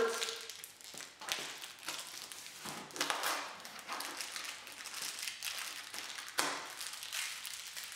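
Cardboard box and packing being handled: a run of rustling and crinkling with light taps as the box is opened and its contents taken out.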